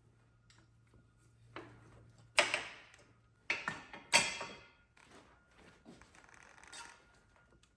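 Metal tools and engine parts being handled during a flathead engine teardown: a few sharp clanks and knocks, each trailing off in a scrape or rattle, the loudest about two and a half and four seconds in, then quieter fiddling.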